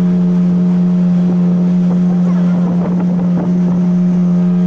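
Motorboat engine running at a steady speed, a constant low hum with evenly spaced overtones, as the boat moves across open water.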